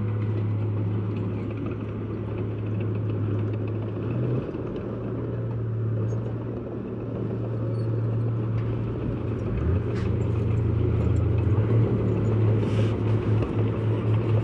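Heavy diesel engine of earthmoving machinery running steadily with a low rumble, growing louder and pulsing near the end.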